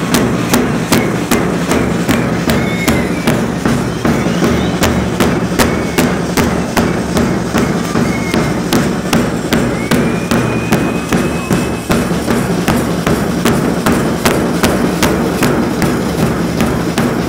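Fast, even drumbeat, about three sharp strikes a second, carrying on steadily as percussion music.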